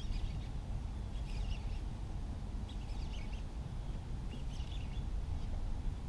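A bird calling over and over, a short high call about every second and a half, over a steady low rumble of wind on the microphone.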